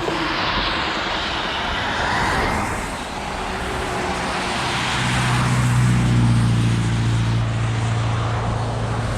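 Brushless motors of a 1/16-scale RC snowcat whining up and down as its tracks spin and churn snow, trying to drive out of being stuck. A steady low hum joins about halfway in.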